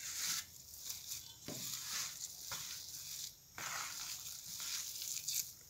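Hand kneading a crumbly dough of chopped fenugreek leaves and flour in a steel plate, squeezing and rubbing it in repeated strokes with short pauses.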